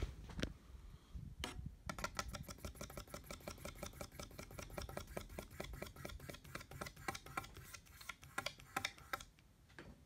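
Ceiling fan clicking rapidly and evenly as it spins, about six ticks a second, stopping near the end. A few single knocks come just before the clicking starts.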